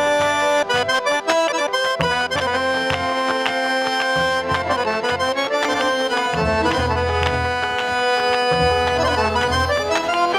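Solo piano accordion playing a melody with chords. There is a flurry of short, quick notes in the first couple of seconds, then longer held notes over a fuller bass line in the second half.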